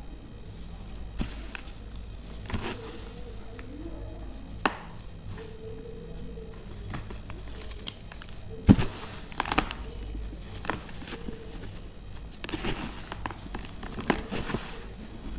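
Broken pieces of pressed baking soda being crunched and crumbled: scattered crisp cracks, the loudest about halfway through, with denser crumbling near the end.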